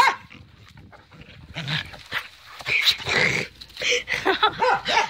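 A dog making short whines and breathy huffs up close as it jumps on a person and knocks him to the ground, with a sharp knock at the very start.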